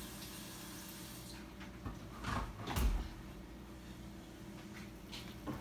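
Water running from a kitchen tap into a pot stops about a second in. A few clunks and knocks follow, ending in one heavy thud, like a filled pot being handled.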